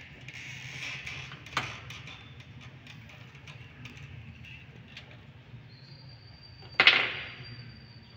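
Moves in a game of chess on a table: a light click about a second and a half in, then a loud sharp clack near the end as a hand comes down on the board and clock, over a steady low room hum.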